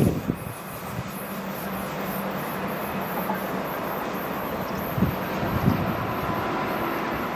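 A train running along the rails: steady running noise with a couple of short low thumps about five seconds in.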